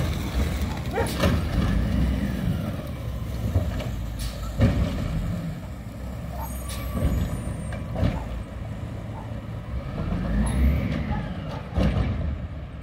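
WhiteGMC Amrep Octo automated side loader garbage truck running, its diesel engine rumbling steadily as the arm lifts and tips a recycling cart into the hopper. Three sharp clanks, the loudest about five seconds in, come from the cart and arm.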